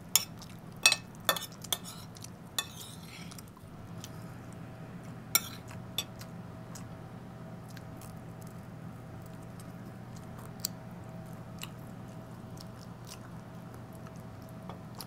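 Fork and spoon clinking and scraping on a plate several times in the first few seconds, then close-up chewing and small mouth sounds as pork is eaten off the bone, with a few lighter clicks, over a steady low hum.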